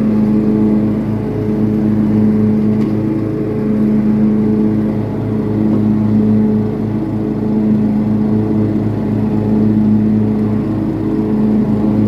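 Cub Cadet riding lawn mower engine running steadily while mowing, its pitch holding even with slow swells in loudness every few seconds.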